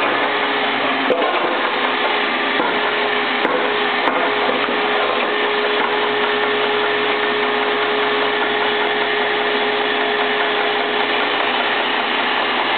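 Little Giant power hammer running, its motor and flywheel spinning: a steady mechanical whir with a held tone and no distinct hammer blows.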